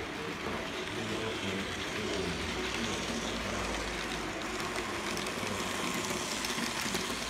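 Model electric locomotive hauling freight wagons running along the track toward the microphone, with a steady running noise that grows a little louder as it passes close. In the second half a faint motor whine and fine ticking of the wheels over the rails come through.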